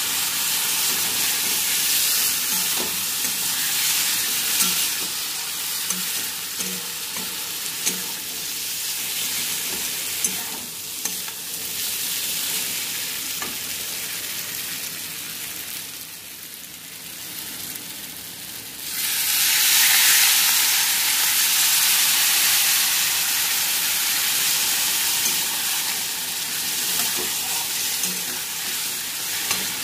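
Gobindobhog rice and diced potato frying with ground spices and a splash of water in a metal wok, sizzling steadily as a metal spatula stirs and scrapes the pan. The sizzle fades lower past the middle, then comes back louder about two-thirds of the way in.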